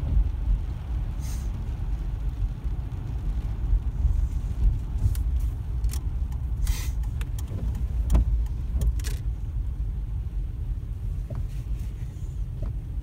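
A car's engine and road rumble heard inside the cabin while driving slowly, steady and low. Scattered short clicks and taps come through it, a couple of louder ones about seven and nine seconds in.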